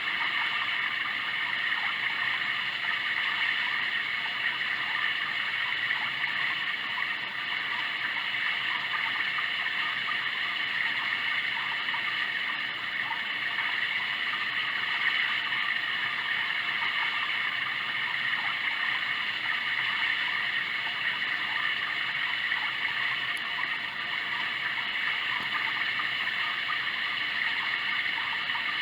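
Sound Oasis ambient sound machine playing a steady running-water sound, an even rushing hiss that holds at one level throughout.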